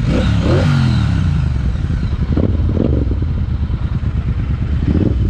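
Parallel-twin motorcycle engines running under way. The engine tone falls as the revs drop in the first second, and the throttle is blipped briefly about two and a half seconds in and again near the end.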